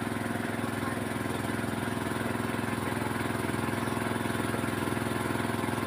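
An engine idling steadily, with an even firing rhythm.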